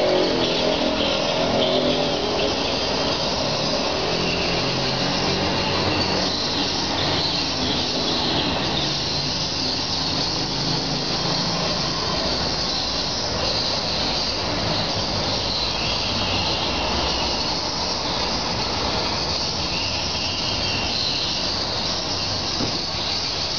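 Steady outdoor background noise: a constant high hiss over a low rumble, with a deeper hum in the first couple of seconds.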